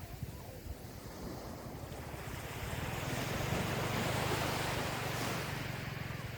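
Gentle ocean waves washing onto a beach, one wave building and breaking with a swell of surf about three to five seconds in.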